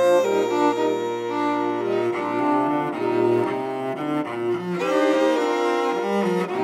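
A string quartet playing a bowed passage, with the cello prominent beneath the higher strings and the notes moving in steady steps.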